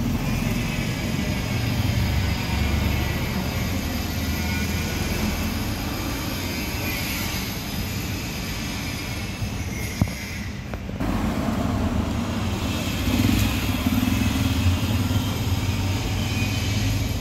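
Busy street traffic: a steady rumble of passing cars and other vehicles, with a sharp click about ten seconds in.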